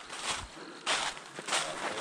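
Footsteps of a person walking across the woodland floor: a steady series of short crunches, about one every half second or so.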